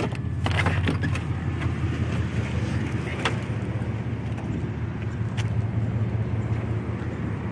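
Car engine and tyre noise heard from inside the car as it drives slowly, a steady low rumble with a few light clicks.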